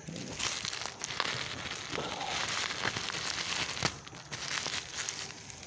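Black plastic courier bag crinkling and rustling as it is handled and opened, with many sharp crackles.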